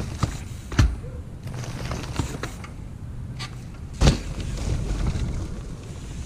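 Mountain bike knocking and landing during trials riding: two loud sharp impacts about three seconds apart, with smaller clicks and rattles between.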